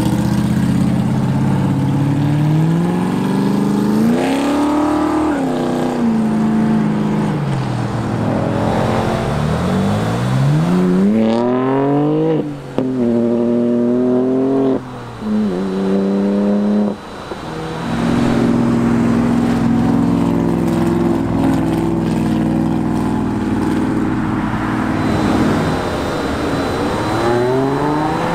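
Car engines revving and accelerating away hard. The pitch rises and falls several times, with a fast climb through the gears midway where each upshift briefly cuts the sound.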